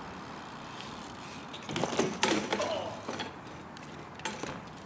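A BMX bike and rider crashing on a concrete ledge: a quick run of metal clatter and hard knocks about two seconds in, and one more knock a couple of seconds later, over a steady outdoor hiss.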